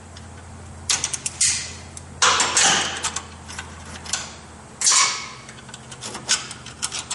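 Metal parts clinking and rattling as the brake cable, its spring and the adjuster are worked off the rear drum brake arm of a Honda TRX300 ATV. The sounds come as half a dozen separate short clanks and rattles, under a faint low hum.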